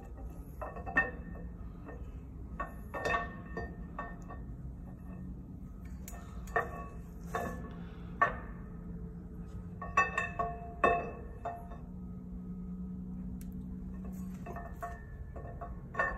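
Steel camshaft of a Cummins 6BT diesel being slid by hand out of its bores in the engine block: irregular metallic clinks and knocks with a short ringing tone as the lobes and journals touch the block. A faint steady low hum runs underneath.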